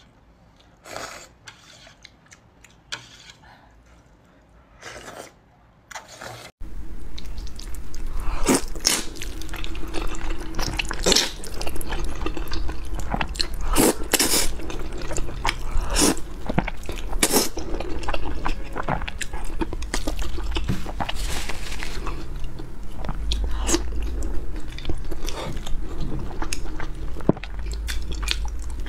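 Close-miked eating sounds: a few short sips of soup from a ladle, then, after an abrupt jump in loudness about six and a half seconds in, steady slurping and chewing of noodles with wet smacks and clicks over a constant low hum.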